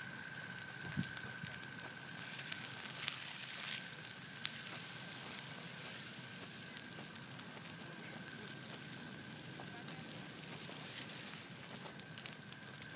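Dry prairie grass burning: a steady hiss with scattered sharp crackles and pops, most of them around three seconds in and near the end. A thin, steady high tone runs underneath.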